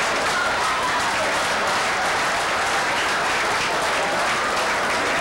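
Audience laughing and applauding, a steady wash of clapping with laughter mixed in.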